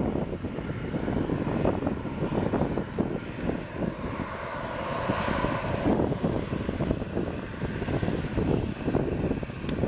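Dash 8-400 (Q400) turboprop landing, its two Pratt & Whitney PW150A engines and six-blade propellers droning with a fluttering rumble. A higher whine swells and fades about halfway through as the aircraft passes.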